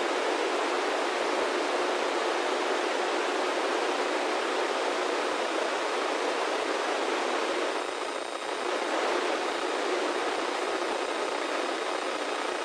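Steady FM radio static hiss from a handheld VHF transceiver on the ISS downlink frequency, 145.800 MHz, with no readable signal. It is the sign of weak reception on the radio's stock antenna, and it dips briefly about eight seconds in.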